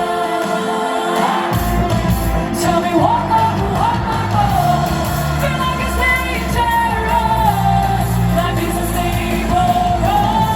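Live pop song played loud over a concert PA system, with a sung melody over it. The bass drops out for about the first second and a half, then comes back in.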